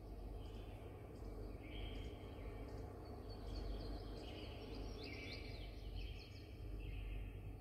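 Forest-and-nature ambience recording played through a capsule-hotel pod's speaker at a turned-up volume: many short bird chirps and brief trills over a steady low hum.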